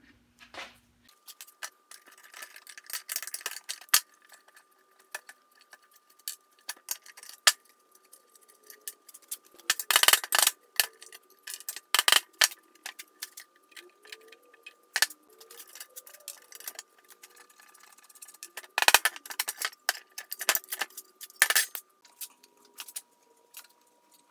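Scattered metallic clinks and sharp hammer taps on the steel undercarriage parts of a wooden wagon, with hand tools knocking against the metal. There are a few louder strikes in the middle and near the end.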